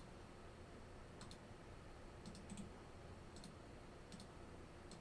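About half a dozen faint, scattered clicks from operating a computer while running an online randomizer, over a low room hum.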